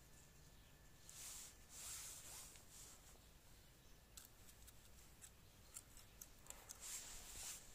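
Faint scraping and rustling of loose soil being worked by hand while planting strawberry seedlings. There are two soft sweeps, one about a second in and one near the end, with a scatter of small clicks between them.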